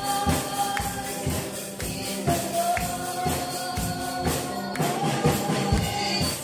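Live band music played through a PA: a singer holding long notes into a microphone over a steady beat of drums and tambourine.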